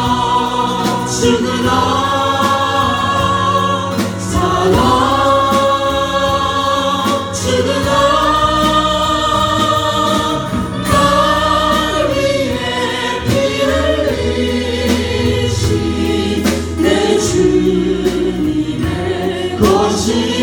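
A group of voices singing a Korean worship song over instrumental accompaniment.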